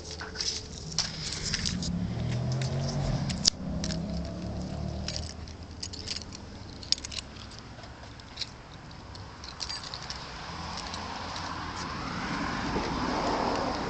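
Keys jangling by the ignition as a 2002 Nissan Altima 2.5S's 2.5-litre QR25DE four-cylinder starts and runs unevenly, its speed rising and the sound growing louder near the end. The unevenness is a misfire and starting trouble that the owner blames on the engine's oil burning and a clogging catalytic converter.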